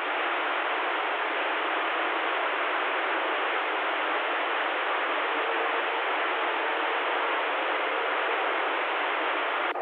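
CB radio receiver hissing with open-squelch static between transmissions, a steady even rush cut off above and below like radio speaker audio. A faint low whistle drifts in and out in the second half.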